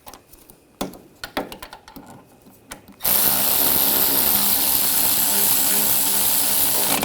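A few light clicks and knocks, then about three seconds in a power tool starts and runs steadily for about four seconds, driving down the brake caliper bracket bolts before they are torqued.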